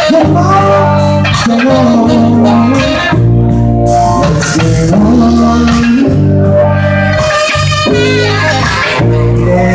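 Band music with guitar and bass guitar playing steadily.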